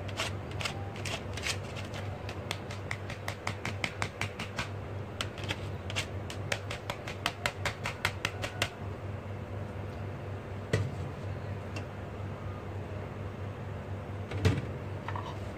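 Cooked rice tipped and shaken from a plastic colander into a pot: a quick run of dry clicks and ticks for about nine seconds, then two single knocks later on. A steady low hum runs underneath.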